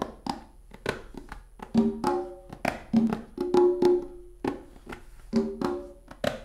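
Hand drums struck with bare hands in a loose, improvised rhythm: sharp slaps mixed with ringing, pitched open tones, several strokes a second.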